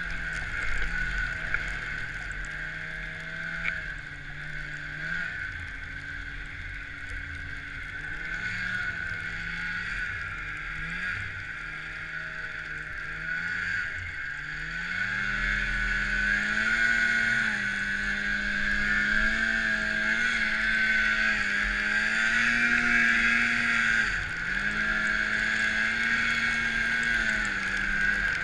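Snowmobile engine running under throttle through deep powder snow, its pitch rising and falling as the throttle is worked. The revs climb and hold higher from about halfway through, with a short dip near the end.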